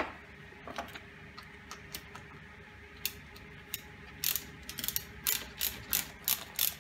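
Ratcheting screwdriver clicking as a screw is driven into a plastic strip. A few scattered clicks come first, then from about four seconds in a steady run of about three clicks a second.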